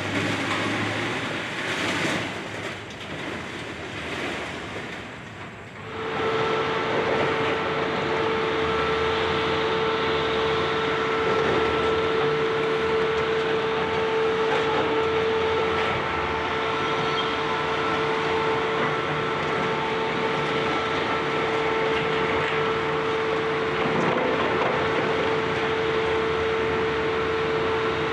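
Heavy demolition excavators at work: a rough, uneven rushing noise gives way about six seconds in to a steady machine sound with a constant whine held on one pitch.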